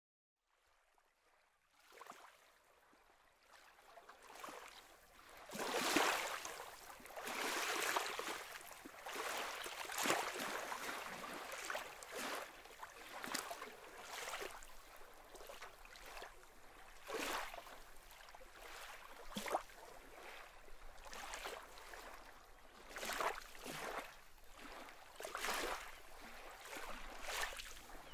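Waves washing and breaking on a lake shore, in irregular swells every second or two, starting about two seconds in after a quiet opening.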